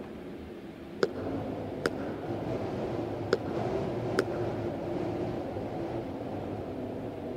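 Four sharp footsteps on stone steps, in two pairs, over a steady low background rumble.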